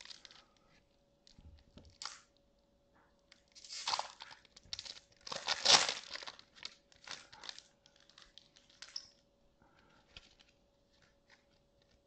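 Small foil Pokémon trading-card booster packs being torn open and their wrappers crinkled, in irregular bursts of rustling that are loudest about halfway through and thin out near the end.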